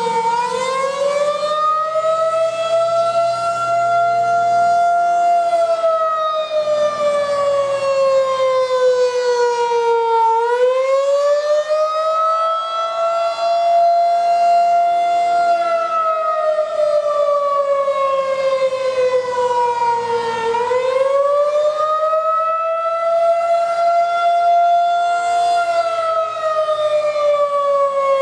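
Federal Signal 2001 DC outdoor warning siren sounding during a test. Its pitch rises over about two seconds, holds, then slides slowly down, repeating about every ten seconds.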